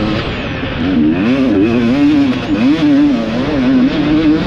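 450cc four-stroke motocross bike engine heard from its own onboard camera at racing speed, its pitch rising and falling again and again as the revs change from about a second in.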